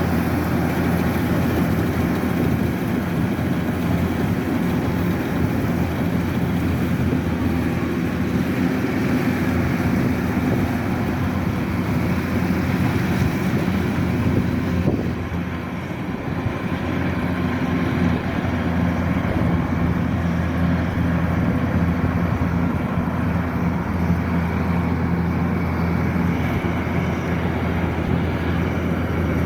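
Kubota combine harvester's diesel engine running steadily, dipping briefly about halfway through before settling back to the same steady pitch.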